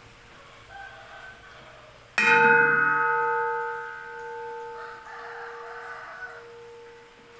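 Bell-metal (vellottu) uruli, a wide bronze vessel, struck once about two seconds in to test its ring. It gives a sharp clang, then rings on with several steady tones that fade slowly, the lowest one lingering longest.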